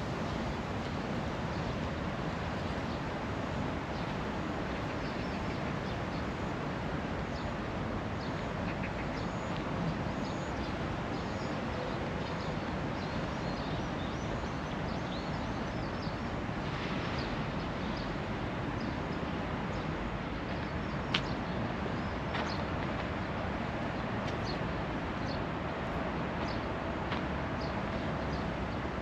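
Steady outdoor background noise with many short, high bird chirps scattered through it, and one sharp click a little after two-thirds of the way in.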